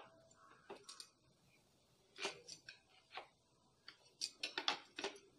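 Knife cutting a slice from a soft baked cake on a plate: faint scrapes and clicks of the blade, a few spaced out, then several close together about four seconds in.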